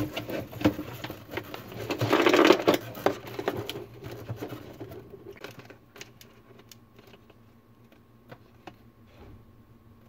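Clicks, taps and rustling from hands handling multimeter test probes and wire leads inside a refrigerator freezer compartment, with a louder rustling scrape about two seconds in, then fainter scattered ticks.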